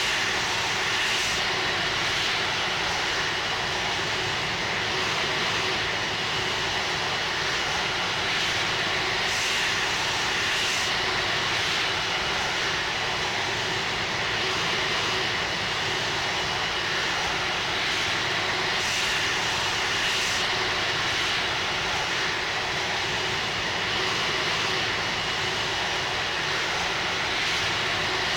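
Airbus A330-300 jet airliner engines running steadily: an even rush of noise with a faint high whine that holds constant throughout.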